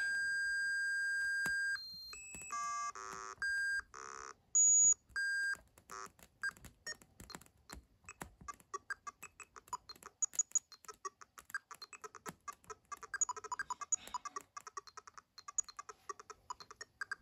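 Fibonacci Machine's electronic tone generator beeping single pure tones at changing pitches, each pitch a Fibonacci number in hertz. The first tone is held almost two seconds, then shorter ones follow with pauses between them, and from about six seconds in it breaks into a fast patter of very short blips.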